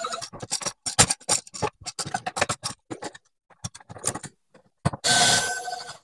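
Screwdriver driving the mounting screws of a wall switch and an outlet into their electrical boxes: a run of rapid, irregular clicks, thinning out after about three seconds, then a short burst of noise about five seconds in.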